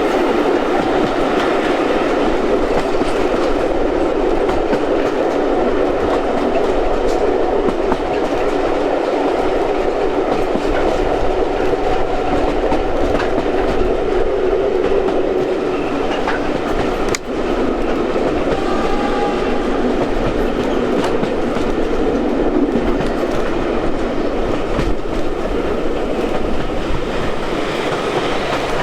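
Train running along the track, a steady rumble with the clickety-clack of wheels over rail joints.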